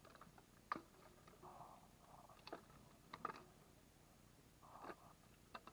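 Dry dead branches knocking and scraping against each other as they are stacked onto a motorbike: a handful of faint, sharp knocks, the loudest just under a second in.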